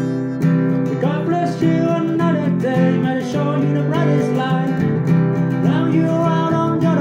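Song with strummed acoustic guitar chords under a lead melody line that bends in pitch.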